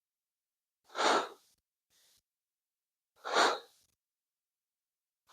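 A man's breath: two short, sharp exhalations about two seconds apart.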